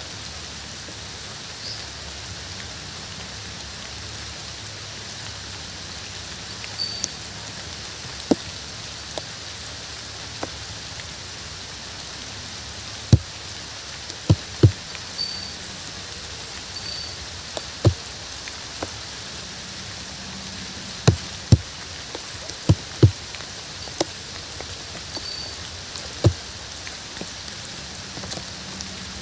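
Steady rain, with large drops landing close by as sharp taps at irregular intervals, many more of them in the second half.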